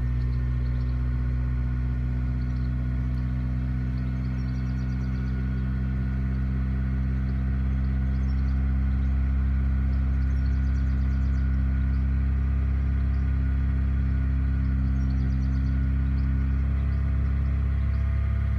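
Honda K20A four-cylinder engine fast-idling steadily at about 2,000 rpm just after a cold start, heard from inside the car's cabin.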